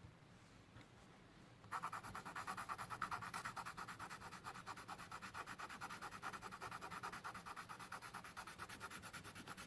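Soft 2B graphite pencil shading rapidly back and forth on drawing paper, a quick even scratching of about seven strokes a second that starts a little under two seconds in.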